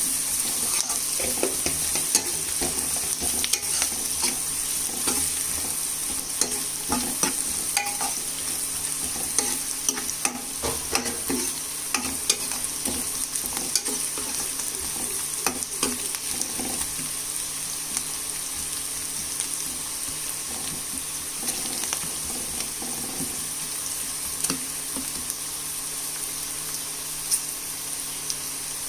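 Chopped vegetables (onion, beans, carrot, cabbage and green peas) sizzling in oil in a pan while being stirred, with frequent clicks and scrapes of the spatula against the pan, busier in the first half.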